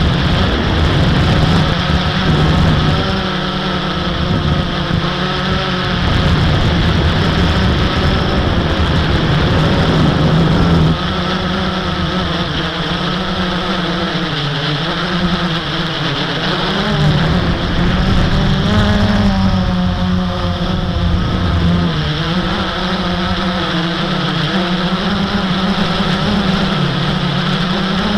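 Blade 350 QX quadcopter's electric motors and propellers whirring in flight, the pitch rising and falling as the throttle changes, with wind noise on the microphone.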